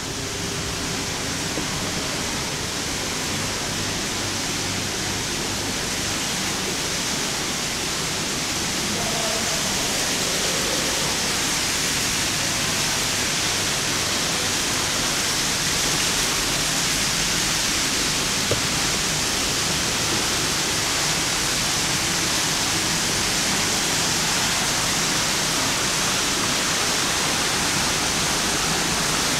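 Steady rushing of water running into a greenhouse lily pond, growing louder over the first ten seconds and then holding even.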